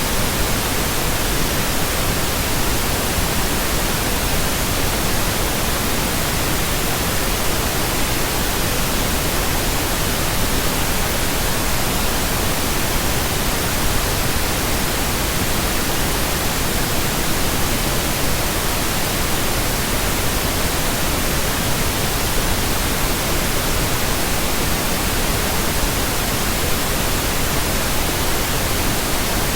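Electronically generated pink noise: a steady, even hiss that does not change.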